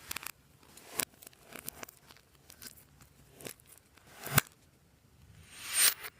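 Slime being worked by hand: a run of sharp sticky clicks and pops, the loudest a little past four seconds, and a swelling squelch near the end.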